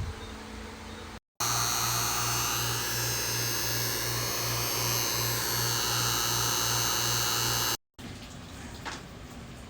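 Vacuum pump running steadily on an HVAC system, pulling a deep vacuum. It is a loud, hissing motor sound with a fast pulsing low hum, heard for about six seconds between abrupt cuts.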